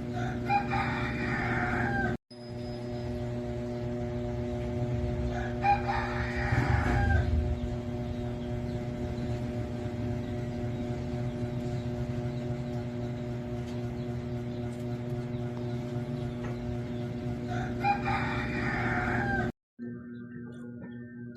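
A rooster crowing three times, each crow about a second and a half long, over a steady low hum.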